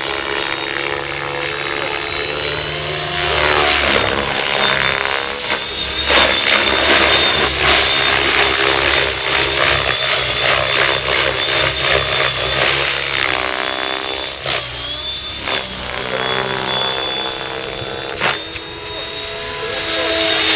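Electric Mikado Logo 600 SE radio-controlled helicopter flying aerobatics: the rotor blades buzz and the motor gives a high whine. Its pitch slides down and up several times as it passes and changes manoeuvre.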